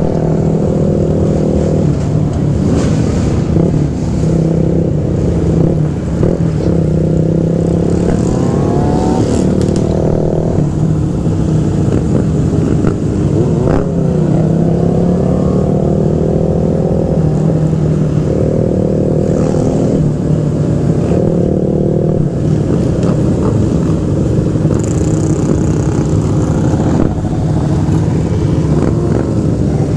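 Motorcycle engine running steadily as the bike rides along in a pack, with other dirt bikes, ATVs and sport bikes around it rising and falling in pitch as they rev.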